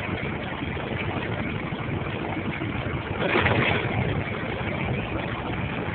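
Steady engine and road noise heard from inside a truck cab while driving through a tunnel, swelling slightly about three seconds in.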